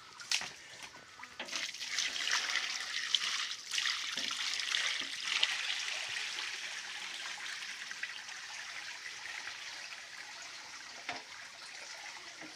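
Water splashing and trickling in a shallow rocky stream. It swells about a second and a half in and slowly dies down toward the end, with a few light knocks.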